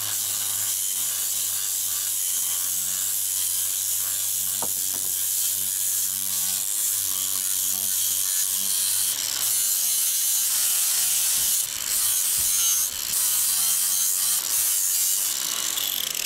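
Ferrex 40-volt cordless angle grinder running under load, its disc grinding down the surface of old wood with a steady high-pitched rasp over a low motor hum. The load eases briefly a couple of times about two-thirds of the way through.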